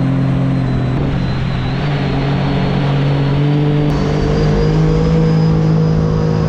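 Jet boat engine running at speed, a steady drone whose pitch climbs slightly from about two seconds in, over the rush of water spray and wind.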